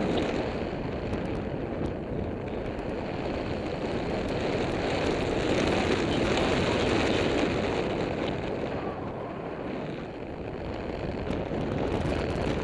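Rushing wind buffeting the microphone of a paraglider in gliding flight: a steady, dense roar of airflow that swells and eases in strength, without engine tones.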